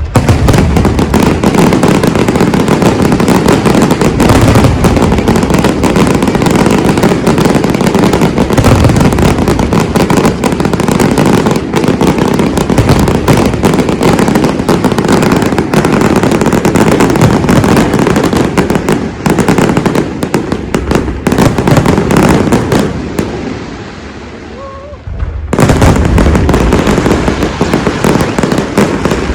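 A dense, continuous barrage of fireworks explosions, many bursts overlapping. It eases off about 23 seconds in and comes back at full strength about two seconds later.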